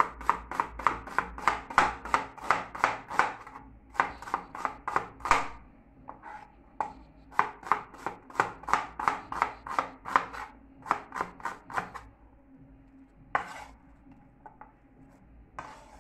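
A chef's knife slicing an onion on a plastic cutting board: quick, even chops about four a second, in two long runs with a short break between them, stopping about twelve seconds in. A couple of single knocks follow near the end.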